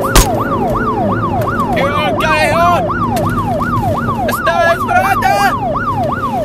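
Siren wail sweeping up and down rapidly, about two cycles a second, with a sharp click just after it begins. Rising voice-like calls sound over it about two seconds in and again from about four and a half seconds.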